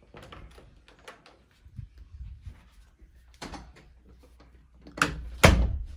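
A run of knocks and clatters, ending in two loud thumps about five seconds in.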